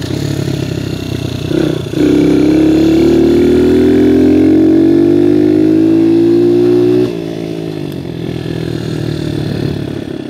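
Viper 150cc dirt bike engine running at low throttle. About two seconds in it is opened up and pulls hard, its note rising steadily in pitch for about five seconds. Then the throttle snaps shut and it drops back to a quieter, lower running sound.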